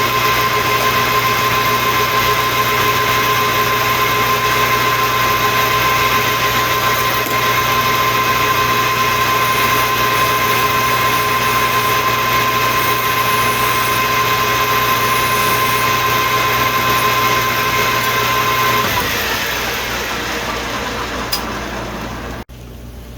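Metal lathe turning a steel shaft, running steadily with a high whine; about nineteen seconds in it is switched off and winds down, pitch falling, until it stops near the end.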